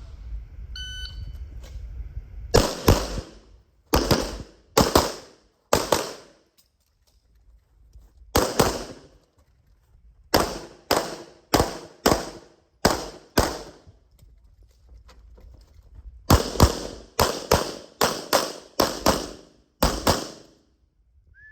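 CZ Shadow 2 pistol firing a stage string, mostly fast double taps, in three bursts of shots with two short pauses between them.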